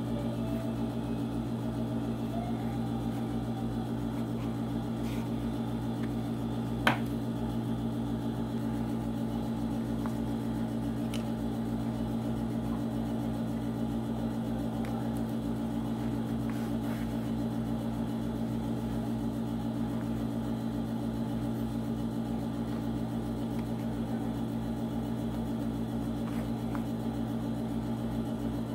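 A steady electrical hum that stays level throughout, with a single sharp click about seven seconds in.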